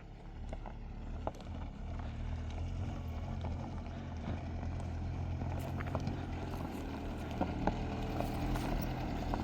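An engine running with a low, steady hum that grows louder over the first couple of seconds and then holds, with scattered light clicks and knocks on top.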